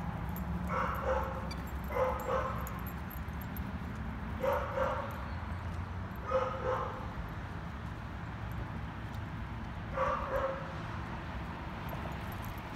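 A dog barking during rough play with other dogs, in five short bursts of mostly doubled barks spread irregularly over the stretch.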